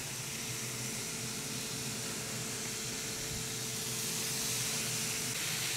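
Bacon strips sizzling on a preheated plancha griddle plate, a steady hiss that grows slightly louder.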